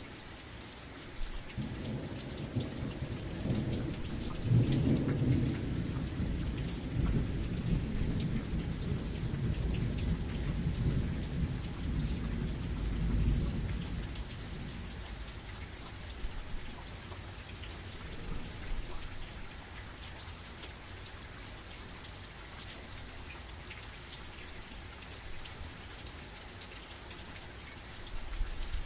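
Steady rain falling. A long, low roll of thunder begins about a second and a half in, swells and rumbles for over ten seconds, then dies away about halfway through, leaving only the rain.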